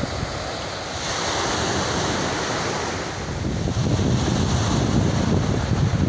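Small sea waves breaking and washing up a pebble beach, with wind buffeting the microphone more strongly in the second half.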